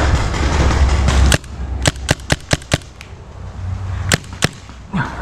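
Paintball markers firing: one sharp pop, then a quick string of about five, then two more a little later. Before the shots there is a steady rushing noise that cuts off suddenly.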